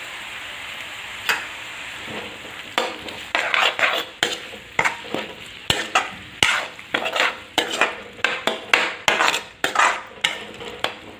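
Vegetables and freshly added chopped tomatoes frying in oil in a kadhai with a steady sizzle. From about three seconds in, a spoon stirs and scrapes against the pan in quick repeated strokes, about two a second.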